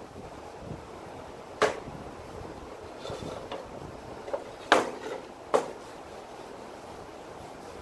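Wooden gage-block case and a can being handled on a steel workbench: one sharp knock about a second and a half in, two more close together near five seconds, with a few lighter taps between, over a steady background hiss.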